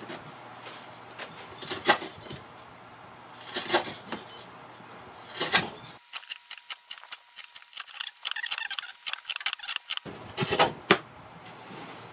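Hand-pushed carving gouge (chōkokutō) cutting hard, figured wood on the inner slope of a round wooden tray: a crisp shaving stroke about every two seconds. Around the middle, a run of many quick, lighter ticking cuts, then two more strong strokes near the end.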